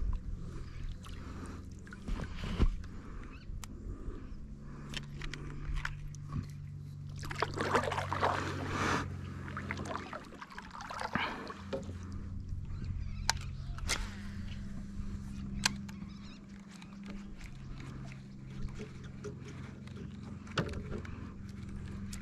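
Water lapping and sloshing against a kayak hull, with scattered small knocks and clicks of gear in the boat. A steady low hum runs underneath, and a louder stretch of splashing comes about eight seconds in.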